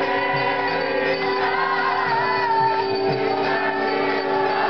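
Devotional group singing (kirtan) over music, with a steady held drone note underneath and wavering sung lines above it.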